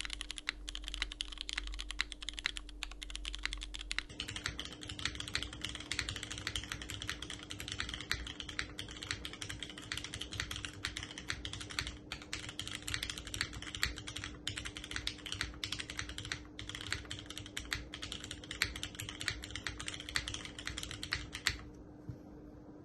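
Continuous fast typing on a custom mechanical keyboard: JJW Cloudline V2 with an aluminium plate, lubed Cherry MX Hyperglide Black switches with Gateron Milky Yellow Pro tops, and doubleshot keycaps. A few seconds in, the recording switches from a dynamic microphone to a phone's camera microphone. The typing stops near the end.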